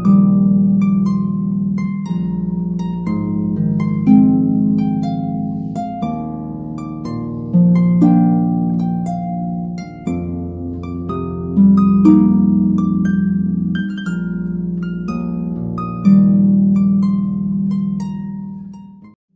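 Background music: a gentle melody of plucked, harp-like notes, each ringing and fading, over held low notes. It breaks off just before the end.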